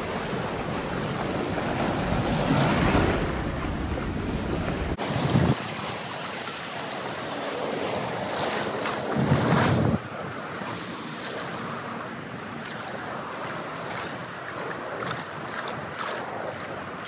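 Small waves breaking and washing over a shallow shoreline, with wind buffeting the microphone. It swells louder about five seconds in and again around nine to ten seconds, then settles to softer lapping with light splashes.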